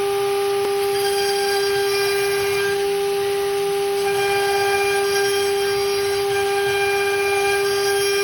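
CNC router spindle running steadily while machining a gun grip: a constant high whine over a steady hiss.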